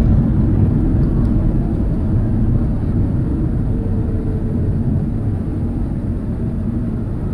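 Cabin noise of a Boeing 737 rolling out on the runway after touchdown: a steady low rumble that eases slightly as the jet slows.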